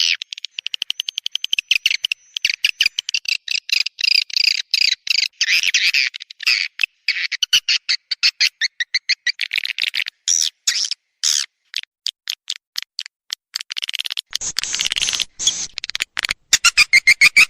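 Swiftlet call recording: rapid trains of short, high chirps and twitters from walet swiftlets, the lure sound played to draw them into a swiftlet nesting house. The chirping gets louder and harsher near the end.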